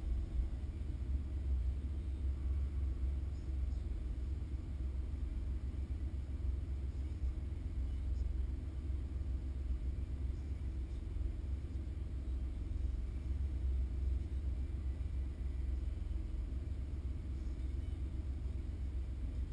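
Car engine idling, heard from inside the stationary car: a steady low rumble that holds even throughout.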